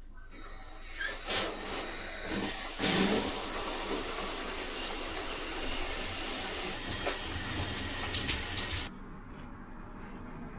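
A few clicks and knocks as the bathtub faucet handle is turned, then water running from the tub faucet in a steady, loud hiss starting about three seconds in; it stops abruptly about nine seconds in.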